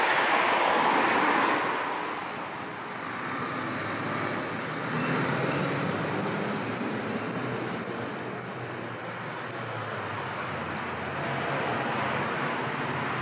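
A car drives past close by, loudest in the first second or two and then fading, leaving steady street traffic noise.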